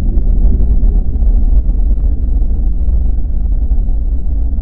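Cinematic intro sound effect: a loud, deep rumble that holds steady.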